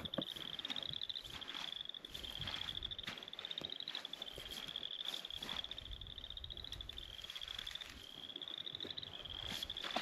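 Frogs trilling in a marsh: a steady series of short, slightly rising pulsed trills, about one a second, with faint footsteps and rustling through dry grass.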